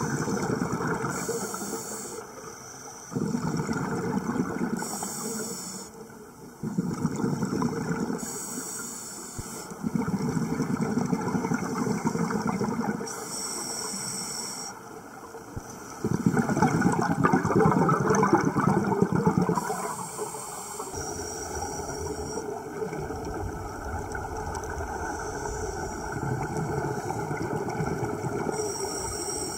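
Scuba diver breathing through a regulator underwater: a short high hiss on each inhale, then a longer bubbling rush as the breath is let out, repeating every few seconds.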